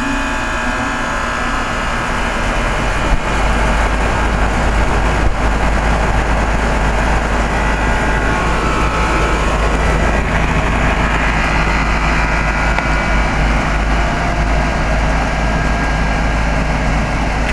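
A 2004 Carrier 3-ton heat pump's outdoor unit starting up in cooling mode: the compressor and condenser fan come on and run steadily. A heavier low hum comes in about three seconds in and holds. It is an unusual-sounding startup.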